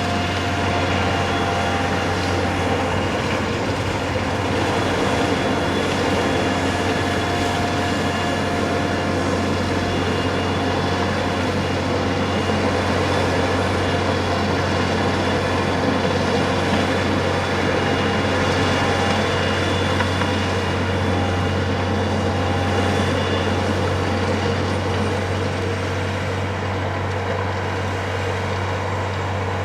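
Steady, unbroken drone of a running vehicle.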